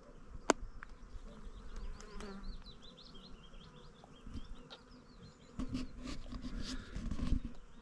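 Honeybees buzzing around a beehive, a fairly faint hum that gets louder in the last couple of seconds, with a few scattered clicks.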